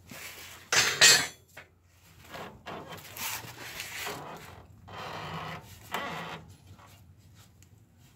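Metal clanking and scraping of steel front-suspension parts and tools being handled: two loud clanks about a second in, then several shorter, quieter scrapes and rattles.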